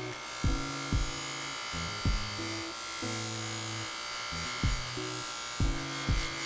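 A Baldor bench buffer running a coarse Scotch-Brite wheel, with a steady abrasive hiss as a motorcycle sprocket is held against it to strip off its plating. Background music with a bass line and a regular kick-drum beat plays over it.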